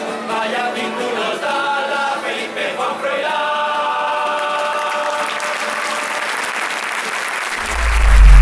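Carnival street singing group finishing its song in unison on a long held chord, then the crowd applauds. Near the end a loud low boom with a falling pitch comes in.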